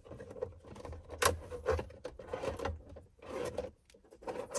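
Hands working a wiring connector and plastic interior trim: irregular rustling and scraping with a few sharp clicks, the loudest a little over a second in.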